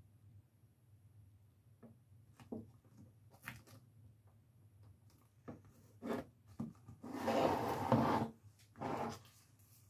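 Handling of craft materials and tools on a work table: scattered light clicks and taps, then about a second of rustling around seven seconds in and a shorter rustle near the end.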